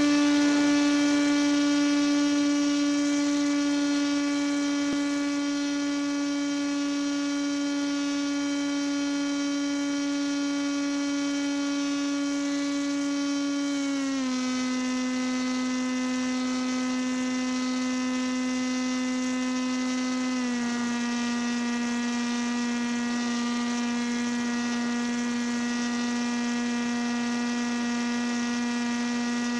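Paramotor engine running steadily in climbing flight, a buzzing drone whose pitch drops in two small steps, about halfway through and again about two-thirds of the way through, as the revs come down.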